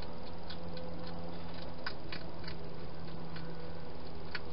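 Wild hedgehog eating at a bowl inside a plastic feeding box: small irregular crunching clicks, a few a second, over a steady low hum.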